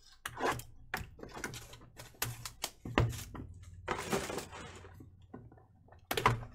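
Hands handling and opening a rigid cardboard box of 2016-17 Panini Impeccable Basketball trading cards: a string of taps and knocks on the table mixed with short scrapes and rustles of cardboard, with a firmer knock about three seconds in.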